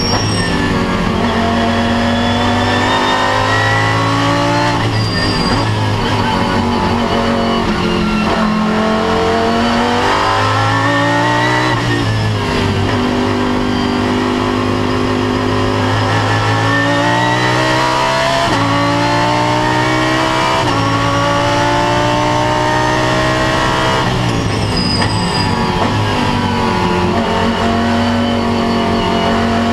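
Lamborghini Huracán GT3 race car's V10 engine heard from inside the cockpit at speed on track, the pitch climbing through the revs and dropping sharply at each gear change, with longer falls in pitch where it slows.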